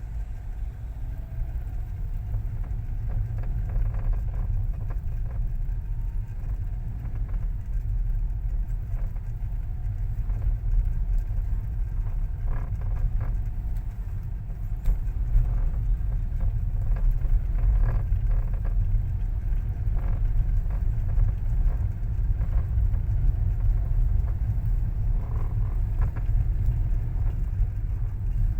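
Steady low rumble of a car, with scattered short clicks or knocks every few seconds: the noise of the car's steering column.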